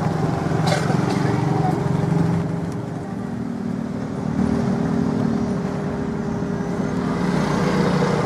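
Small boat engine running steadily with a fast, even putter.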